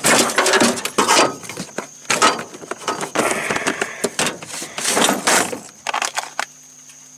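Fishing gear being handled and rummaged through in a boat: irregular clattering and rustling that dies down about six seconds in, leaving a faint steady low hum.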